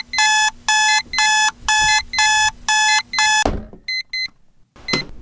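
Electronic alarm clock beeping, about two beeps a second, which stops suddenly with a dull thump about three and a half seconds in. A few short, faint beeps follow.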